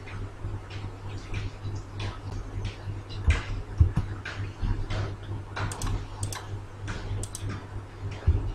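Irregular clicks and taps of a computer keyboard and mouse as spreadsheet cells are selected, copied and pasted, over a steady low hum.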